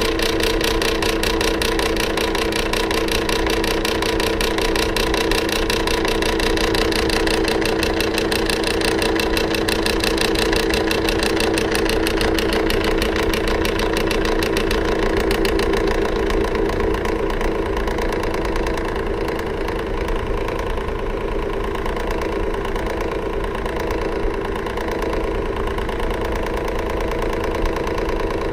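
Electric fan running: a steady motor hum over the rush of moving air, easing slightly and losing some of its hiss about two-thirds of the way through.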